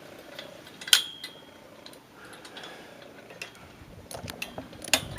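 A few scattered sharp metallic clicks and knocks from the metal frame and hand winch of a home-built well-drilling rig, one louder about a second in and a small cluster near the end.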